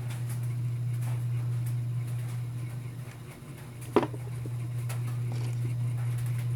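A steady low hum, with one sharp click about four seconds in.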